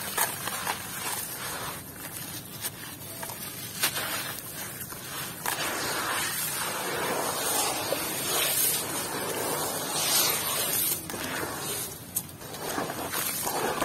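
Hands squeezing and crumbling a wet, powdery block in a bowl of water, grains and bits dropping into the water with a gritty rustle and small crackles, densest about halfway through.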